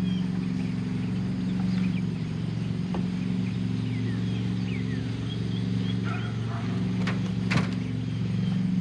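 An engine running steadily with a low, even hum, with small birds chirping over it and a sharp click near the end.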